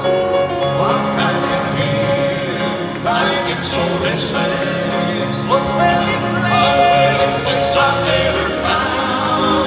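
Male Southern gospel quartet singing live in harmony with piano accompaniment, amplified through a sound system and heard from the audience.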